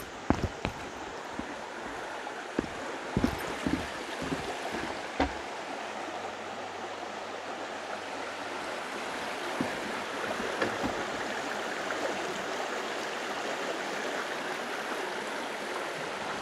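Steady rushing of a brook running over stones below a footbridge. In the first few seconds there are a few knocks of footsteps on the wooden bridge boards.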